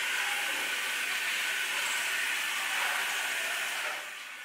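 Aloe leaf brushing machine with rotating bristle rollers running, a steady hiss with a faint whine, dropping a little in level near the end.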